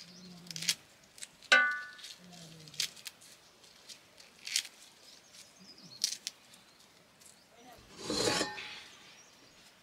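Crisp snips of green vegetable stalks being cut against a hand-held sickle blade over a steel plate, one every second or so, with one ringing metal clink about a second and a half in. A longer rustling scrape follows near the end.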